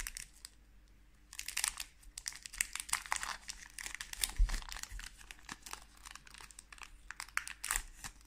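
Foil wrapper of a Pokémon card booster pack crinkling and tearing as it is ripped open by hand, in irregular crackles. A dull low thump comes about four and a half seconds in.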